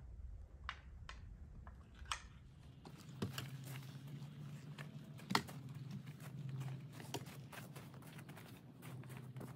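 A snow brush sweeping and scraping snow off a car's windows: quick scratchy, crunchy strokes starting about three seconds in, with one sharp knock a couple of seconds later. A low steady hum runs underneath.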